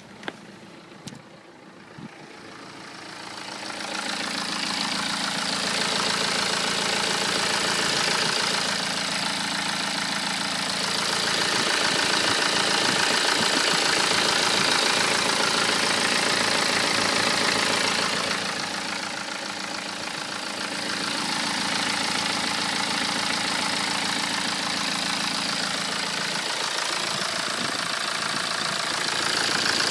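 BMW 118d's N47 four-cylinder diesel engine idling steadily with a metallic rattling noise, which the owner suspects is the model's known timing-chain fault. A few sharp clicks come at the start, and the engine grows louder a few seconds in.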